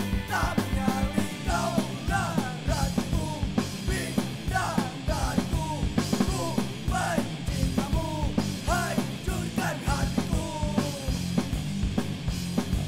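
Punk rock song playing: drums keeping a steady fast beat over bass, with a melodic lead line bending above them.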